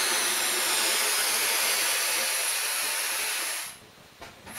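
Helium hissing out of a disposable helium canister's valve into a latex balloon as it inflates, with a thin high whistle over the hiss. The flow stops about three and a half seconds in, and a short second burst begins at the very end.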